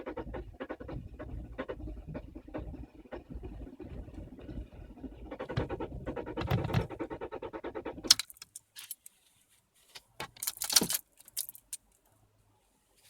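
VW Polo's starter cranking the engine in a fast, even rhythm without it firing: the car won't start. The cranking cuts off suddenly about eight seconds in, followed by a brief jingle of keys about two seconds later.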